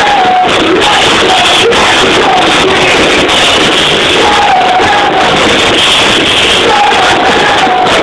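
Live synth-rock band playing loud with a sung melody over it, recorded in the audience on a phone.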